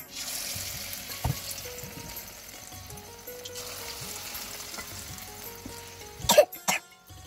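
Onion pakoras sizzling as they deep-fry in hot oil in a kadai, a steady hiss. There is a click about a second in and two sharp knocks near the end, with background music underneath.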